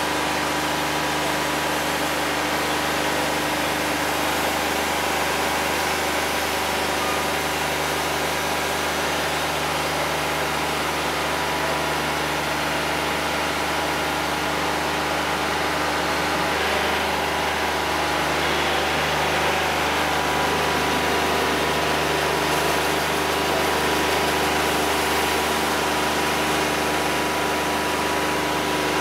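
Wood-Mizer LT50 Wide portable sawmill running, its engine giving a steady, even drone.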